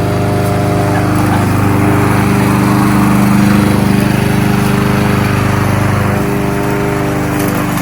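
Kohler XT-675 single-cylinder engine of a push lawn mower running steadily, its note shifting slightly a couple of times.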